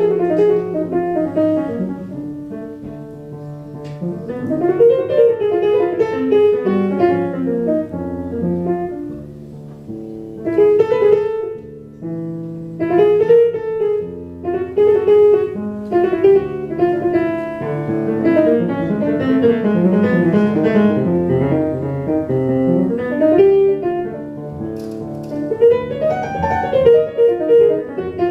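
Live jazz on acoustic grand piano with double bass: a steady run of chords and melodic lines over low bass notes.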